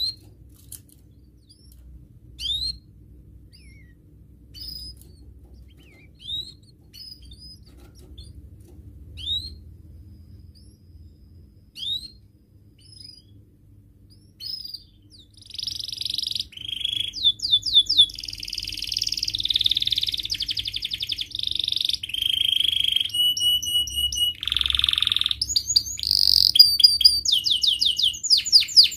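Young domestic canary giving single short rising 'cuit' call notes every second or two, then about halfway through breaking into continuous, louder song of fast trills, rapid repeated notes and buzzy rolls.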